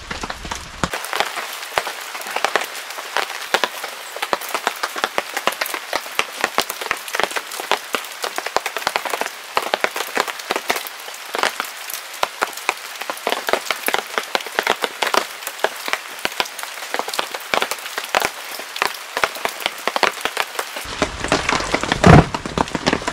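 Rain falling on the hard plastic casing of a BLUETTI AC240 portable power station and on the gravel around it: a dense, irregular run of sharp little ticks. One heavy thump near the end.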